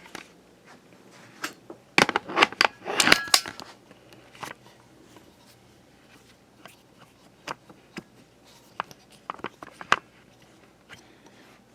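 Scattered clicks and light knocks of plastic fan parts and the switch being handled, densest about two to three and a half seconds in, then sparser taps.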